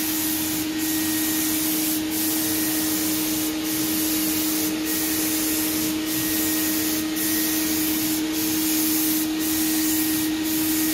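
HVLP spray gun spraying paint: a steady hiss of air and atomised paint over a steady low hum. The hiss dips briefly about once a second.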